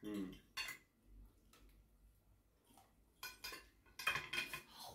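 Knives and forks clinking and scraping on ceramic plates while food is cut and eaten: a single click early, then quiet, then clusters of clinks from about three seconds in that are busiest near the end.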